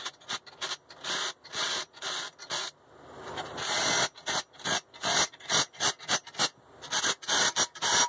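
Yellow-and-black cordless impact driver run in many short bursts with a longer run in the middle, spinning nuts down onto the steering arm studs of a Toyota steering knuckle.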